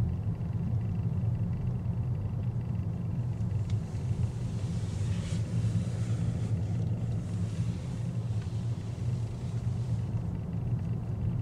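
Steady low rumble inside the cabin of a Mazda 3 Skyactiv-X rolling slowly: engine and tyre noise.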